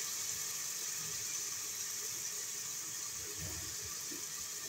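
Onions, garlic and ginger sizzling steadily in hot oil in an aluminium pressure cooker, left to fry without stirring: an even, high hiss.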